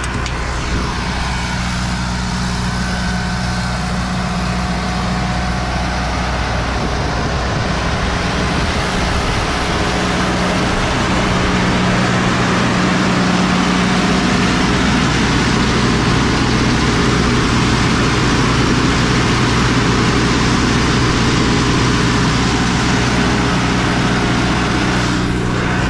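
Irrigation well pump power unit's engine running steadily with a low, even hum, growing louder over the first ten seconds or so.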